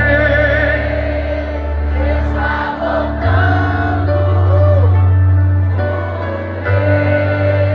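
Live gospel music from a band over a large stage PA, with many voices singing together over heavy, sustained bass notes.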